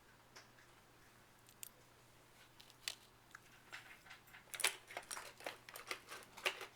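Handling noise from small objects being worked in the hands: a few scattered light clicks at first, then a busy run of clicks and rustling from about three and a half seconds in.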